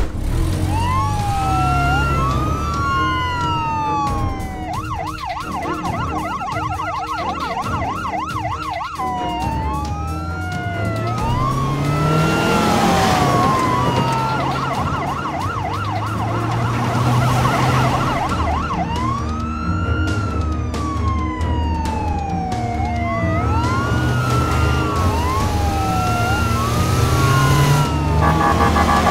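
Ambulance siren cycling between a slow wail that rises and falls every second or so and a fast yelp, switching to the yelp three times.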